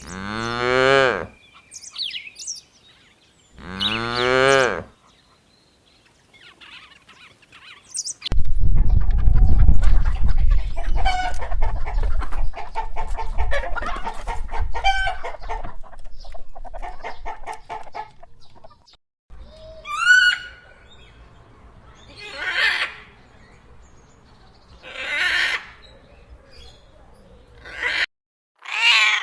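Two wavering bleats of about a second each from a goat near the start, then chickens clucking and peeping over a noisy yard background, with several short loud calls near the end.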